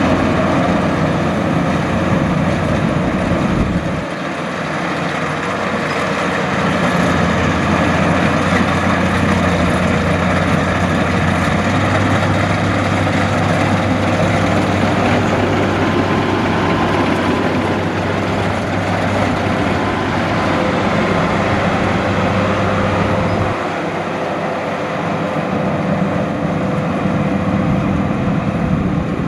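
Luvol RD18 rice combine harvester running steadily under load, its engine's deep hum mixed with the noise of the harvesting machinery. The low hum changes abruptly a few times.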